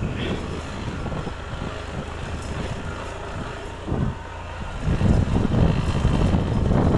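A vehicle travelling along a road, its running and road noise mixed with wind buffeting the microphone. The noise gets louder about five seconds in.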